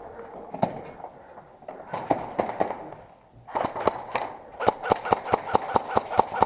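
Airsoft guns firing: a few scattered shots, then a steady run of sharp cracks at about five a second through the second half.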